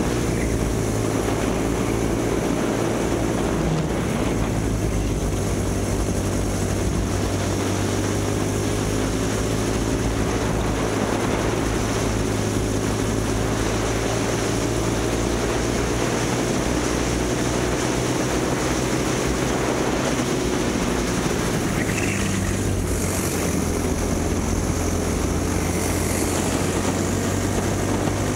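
Kid kart's small two-stroke engine running hard at race pace, its pitch climbing and dropping as it accelerates and slows through the lap, over steady wind and road hiss.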